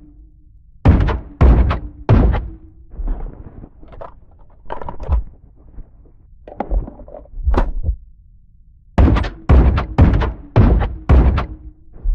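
Sound effect of a GSW-AMR .50 calibre sniper rifle: loud shots in quick runs about half a second apart, three in the first couple of seconds and five near the end, with softer, quieter reports in between.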